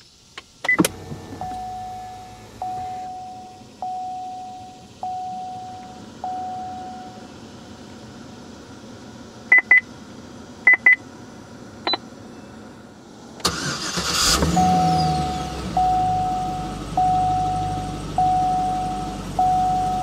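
The key clicks in the ignition of a 2015 Cadillac CTS-V's supercharged 6.2-litre LSA V8, and a dashboard warning chime dings about once a second, with two pairs of short high beeps. About two-thirds of the way through, the engine cranks and fires with a brief flare, then runs at a steady idle while the chime keeps dinging.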